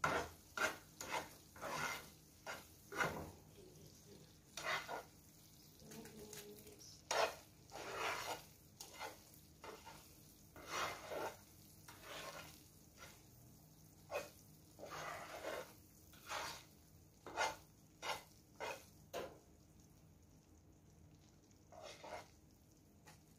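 Metal spoon stirring and scraping foamy caramel syrup in a non-stick frying pan, in irregular short strokes over a faint bubbling hiss; the strokes thin out near the end.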